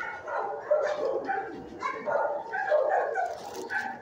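Dogs barking in a shelter kennel area, many short barks following and overlapping one another without a pause.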